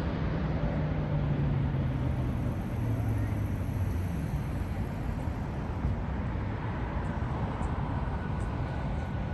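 Steady roar of a landing Airbus A321neo's Pratt & Whitney geared turbofan engines. A low tone in it falls slowly in pitch over the first few seconds as the plane rolls away.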